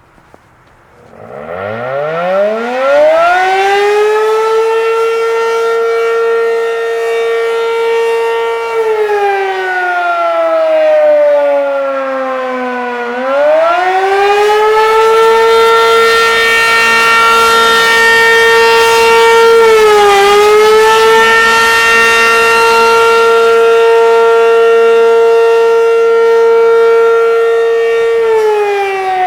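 ACA P-15 outdoor warning siren sounding the attack signal. It winds up from a low pitch about a second in to a steady high tone, slides down for several seconds, rises again and holds with a brief dip, and starts falling again near the end.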